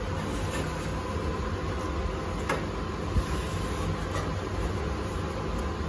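Steady hum of running air-conditioning equipment, with a few light clicks and scrapes as a fibre air filter is slid into a sheet-metal filter rack.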